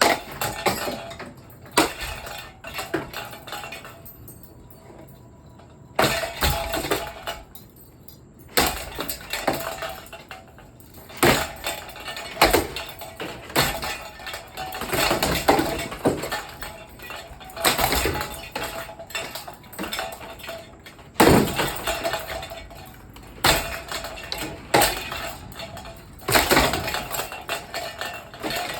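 A 1994 Hunter Piedmont ceiling fan being struck over and over, irregular metallic smashing and clanging blows, some in quick runs, with a brief ringing between hits. The fan's body holds up under the beating.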